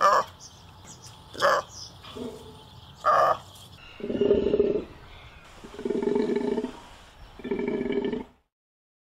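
Golden takin calling: four short, sharp calls in quick succession, then three longer, lower calls of about a second each.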